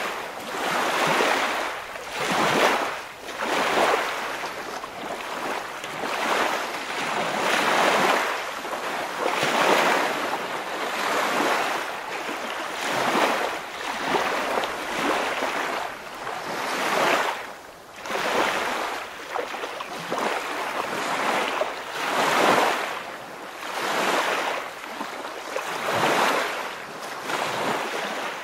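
Waves washing and breaking, swelling and fading in an even rhythm of about one surge every one and a half to two seconds.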